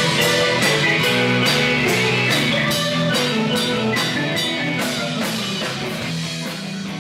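Live band music with guitar and drums on a steady beat, gradually fading out.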